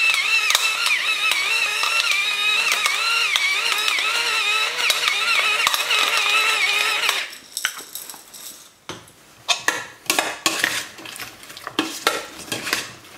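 Electric pepper mill grinding black peppercorns, a steady wavering motor whine for about seven seconds. It stops, and after a pause comes a run of clinks and knocks as the marinade is mixed in a stainless steel bowl.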